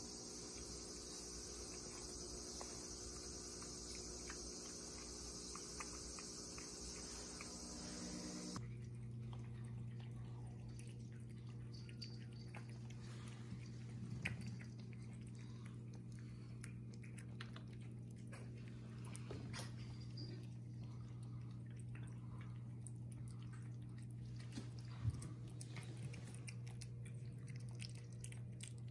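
Cats eating wet food from ceramic bowls: soft chewing and licking with occasional small clicks. A high steady hiss in the first third stops abruptly and gives way to a low steady hum.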